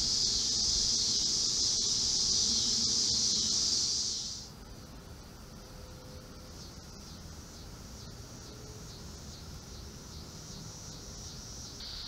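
Insects singing in a summer garden: a loud, steady high-pitched buzzing drone that cuts off suddenly about four seconds in, followed by a quieter high chorus of rapid, even pulsing chirps.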